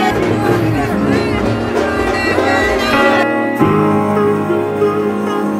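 Background music. A little over three seconds in it changes to a softer passage of held notes.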